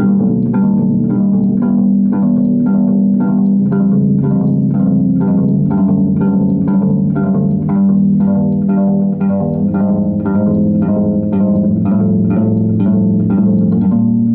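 Solo bass improvisation: a sustained low drone with repeated plucked notes over it, about two a second in a steady pulse.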